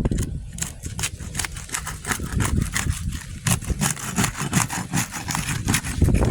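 Roofer's snake tool scraping between asphalt shingles, the sealant bond crackling and tearing as it is pried apart in a quick run of short scrapes, over a low rumble.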